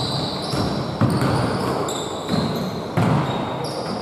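Basketball game on a hardwood gym floor: a basketball bouncing, with a couple of sharp knocks, and sneakers squeaking in short high chirps as players run.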